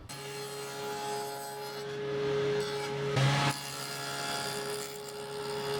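Power tool cutting a dado groove into a maple board, its motor running with a steady hum and a brief louder burst about three seconds in.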